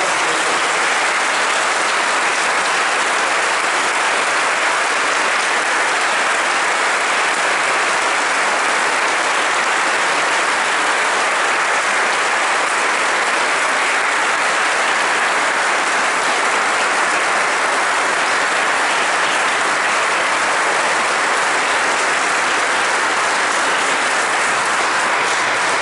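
Congregation applauding: many hands clapping in a long, steady round.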